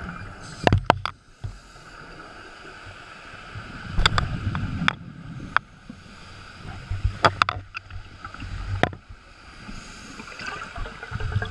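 Scuba diver's exhaled bubbles heard underwater: bursts of low bubbling rumble and sharp crackles from the regulator exhaust every three to four seconds, matching a breathing cycle, over a steady faint hum.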